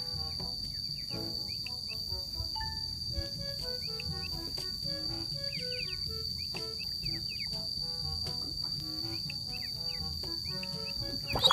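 Steady high-pitched drone of insects, like crickets, with scattered short notes and chirps over it.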